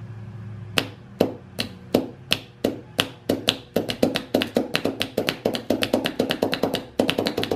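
Lawn mower starter solenoid clicking over and over as its ground lead is tapped against the mounting bracket. The clicks come about three a second, then quicken into a rapid rattle from about four seconds in, with a steady low hum underneath. The meter on the posts stays silent: it clicks but its contacts don't close, the sign of a bad solenoid.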